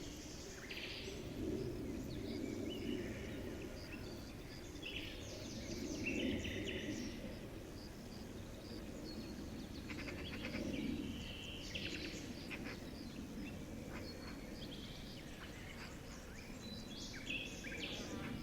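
Nature ambience: many short bird chirps and calls scattered over a steady low background rush that swells and fades every few seconds.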